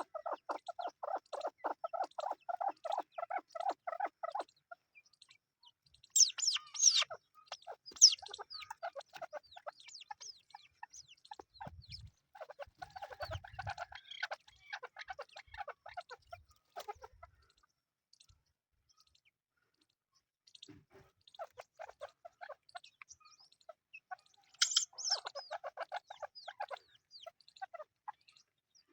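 Chukar partridge chicks calling in rapid trains of short chirps, with bursts of shriller, higher chirps, a few low thumps in the middle, and a brief lull about two-thirds of the way through.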